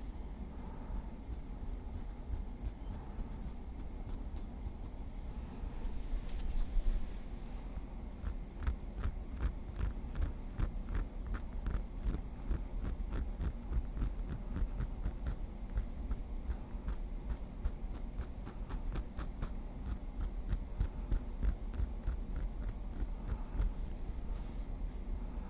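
Small wooden stick tapped and scraped lightly close to the microphone: a rapid run of light ticks, several a second, with a louder rustle about six seconds in.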